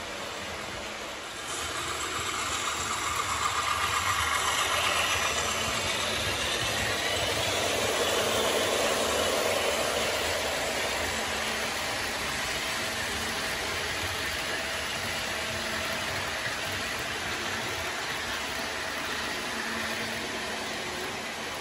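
An HO-scale model freight train led by a Rapido MLW M420W locomotive passing close by: a diesel engine sound, most likely from its sound decoder, over the rolling of the wheels on the track. It gets louder about a second and a half in as the train draws near.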